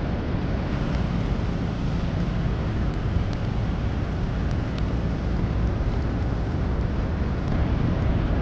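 Steady rushing noise, heaviest at the low end, with wind on the microphone.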